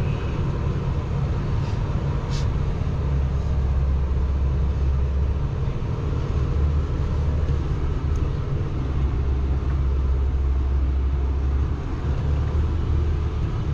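Mahindra Thar SUV driving slowly over a muddy, slushy snow track: a steady low engine and road rumble.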